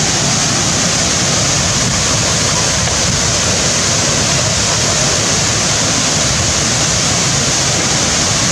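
A large waterfall plunging into a pool, a steady, unbroken rush of falling water.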